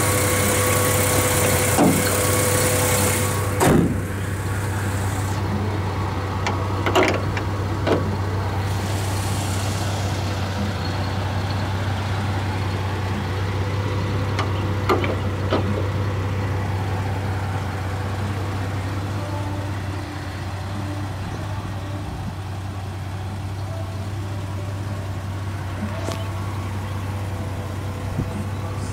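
Jeep Wrangler's 4.0-litre inline-six engine idling with a steady low drone. A few sharp knocks or clicks sound over it, the loudest about four seconds in.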